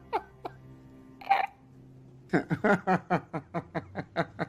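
Laughter in quick short bursts, then a brief noisy burst about a second in, then a longer fit of rapid laughter, about six pulses a second, from about two seconds in.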